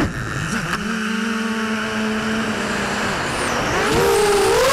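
Motors and propellers of a Shen Drones Krieger FPV quadcopter. The whine drops sharply as the throttle is cut at the start, hums low and steady for about three seconds, then rises again near the end as the throttle comes back on.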